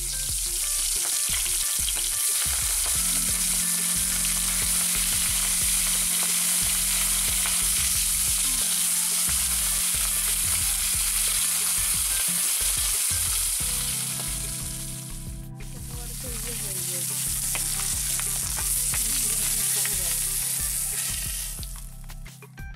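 Rui (rohu) fish head pieces sizzling as they fry in hot oil in a metal wok, with the metal spatula scraping and clicking against the pan as they are turned. The sizzle breaks off briefly about two-thirds of the way through and fades near the end.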